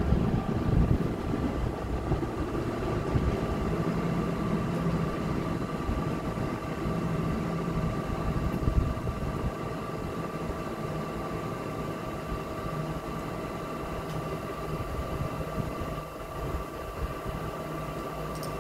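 NJ Transit Bombardier bilevel commuter train pulling away. The low rumble of its cars on the rails fades over the first ten seconds or so, and a steady whine of a few tones hangs over it.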